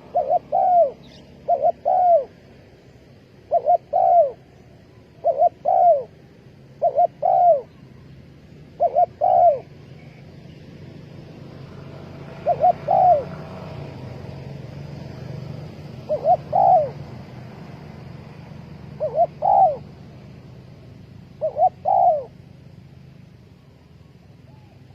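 Spotted dove cooing: short phrases of two or three coo notes, repeated every second or two at first, then more widely spaced after about ten seconds. A low background rumble swells in the middle.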